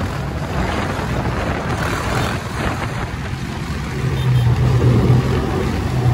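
Motorcycle engines running at road speed amid wind and road noise, filmed from a moving bike in a group ride. About four seconds in, a steady engine note holding constant revs comes up loud over the noise.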